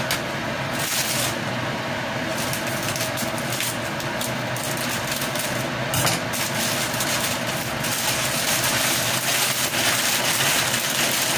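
Kitchen exhaust fan running with a steady hum, with the occasional crackle of a plastic noodle packet being handled.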